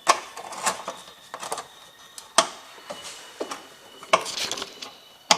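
Irregular metallic clicks, knocks and scraping as a steel parking brake cable and its fittings are worked into place under a car, about seven sharp clinks spread across the few seconds.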